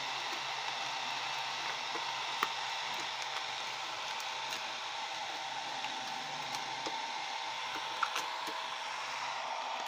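Hand-held electric hair dryer running steadily with an even rush of air, aimed at a motorcycle body sticker to heat and loosen it. A couple of faint clicks of handling about two and eight seconds in.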